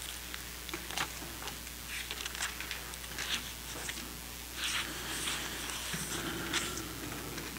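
Thin Bible pages turned by hand, a string of short crisp rustles and flicks with a longer rustle about five seconds in.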